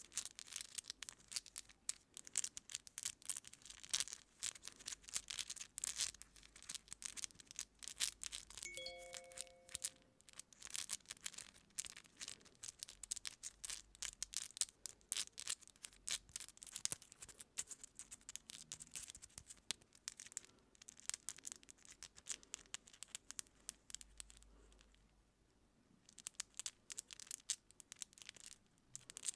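Long acrylic fingernails and a thin pick scratching and picking through hair at the scalp, a dense run of fast, fine crackles. About nine seconds in, a brief chime-like tone sounds, and near the end the crackling stops for about two seconds before starting again.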